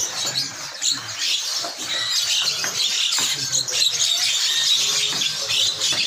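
Dense chatter of many caged birds, overlapping high-pitched chirps and squawks with no single call standing out.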